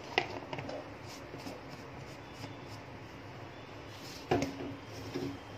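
Clinks of metal kitchenware at a steel saucepan while sugar is added to tea: two sharp clinks about four seconds apart, the second ringing briefly, with a few softer knocks in between over a steady low hiss.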